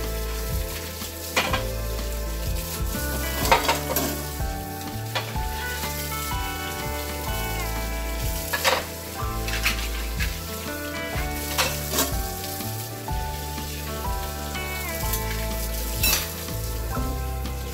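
Water running from a tap over dishes being hand-washed, with ceramic bowls clinking sharply about five times. Background music plays underneath.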